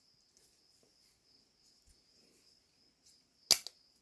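A single sharp metallic click about three and a half seconds in as the manual transmission's metal parts are handled, over a faint steady high-pitched hiss.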